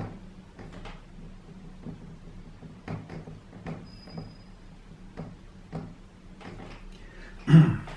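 Dry-erase marker writing on a whiteboard: a string of short scratching strokes, with a brief high squeak about halfway through. A short, louder sound comes near the end.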